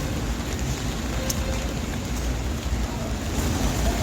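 Rainy city street ambience: a steady low rumble of road traffic under the hiss of rain.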